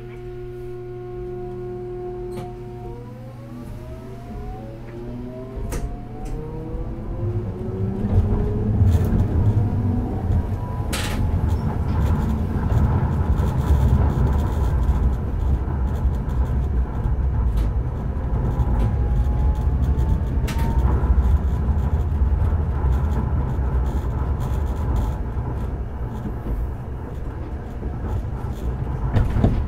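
Toyo Denki early GTO VVVF inverter of a Hakodate 3000-series tram pulling away: a few steady inverter tones at first, then several pitches rising together over about seven seconds as it accelerates, with wheel and track rumble building underneath. A shorter rising tone comes later, and there is one sharp click about eleven seconds in.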